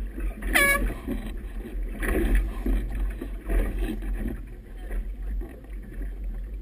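Choppy river water slapping and splashing against a small boat's hull in surges, over a steady low rumble of wind on the microphone. About half a second in comes one brief high-pitched cry that bends in pitch.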